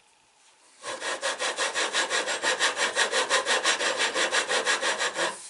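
Steel scope-ring lapping bar rasping back and forth through the rifle's scope rings in abrasive lapping compound, at a quick even pace of about six strokes a second. It starts about a second in and stops near the end. The compound is grinding the rings' inner surfaces into alignment with each other.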